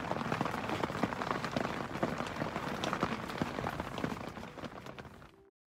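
Rain pattering on the fabric of a rooftop tent, heard from inside the tent: a dense, even patter of drops that fades near the end and cuts off abruptly.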